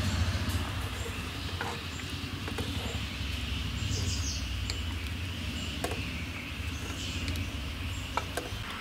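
Steel ladle clinking a few times against a steel plate and an aluminium pressure cooker as dal is served, over a steady low background rumble.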